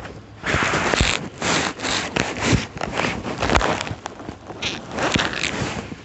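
Irregular scraping and rustling handling noise, in a quick run of short bursts: a knit glove and a jumper-cable clamp rubbing right against the phone's microphone.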